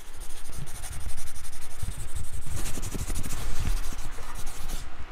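Dense scratching, rubbing noise with soft low thumps scattered through it, cutting off suddenly at the end: the sound effect of a logo animation.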